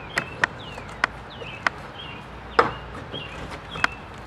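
A pry bar knocking and cracking as the last side of an old door's wooden brick mold is pried off the frame: about six sharp, separate knocks, the loudest a little past halfway. Birds chirp in the background.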